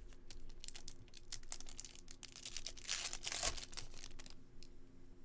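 Glossy trading cards handled and slid past one another, with crinkly rustling and light clicks that are thickest about three seconds in.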